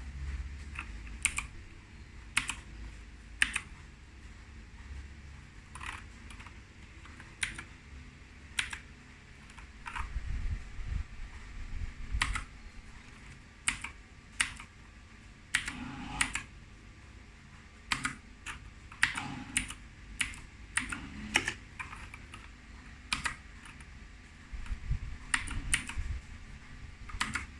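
Keys of a Keychron K4 mechanical keyboard pressed one at a time: separate sharp clicks at uneven spacing, sometimes two in quick succession, with gaps of up to a second or so between presses.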